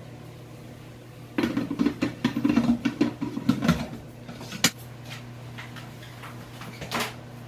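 Pots and a stainless steel bowl clattering as they are handled at a kitchen sink, with a sharp metal knock near the middle and another near the end, over a steady low hum.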